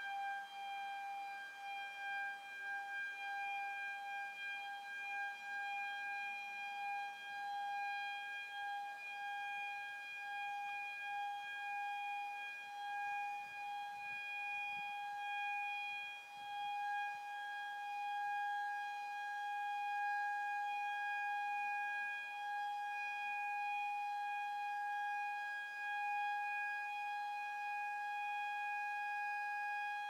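A small Model A siren sounding in the background, one steady held tone with overtones at a constant pitch.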